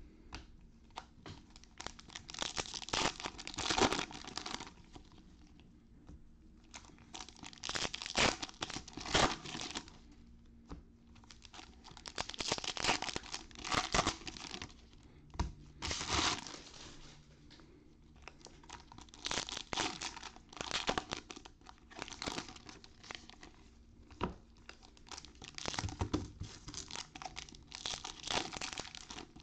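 Shiny plastic trading card pack wrappers being torn open and crinkled by hand, in repeated irregular bursts as pack after pack is opened.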